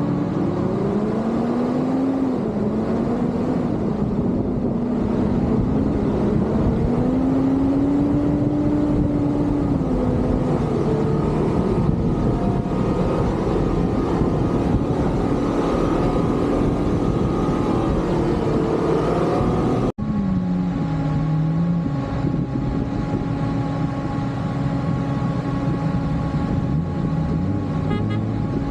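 Mitsubishi Pajero engine driving off-road, its revs rising and falling every few seconds. The sound cuts off abruptly about two-thirds of the way in, and after that the engine note runs steadier.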